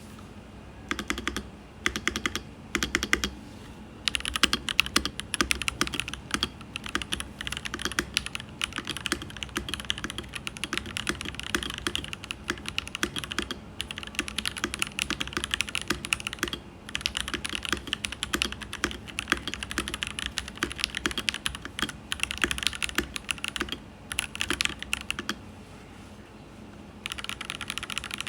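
Mikit DK65 mechanical keyboard being typed on. A few short bursts of keystrokes come first, then fast continuous typing with a brief pause near the end.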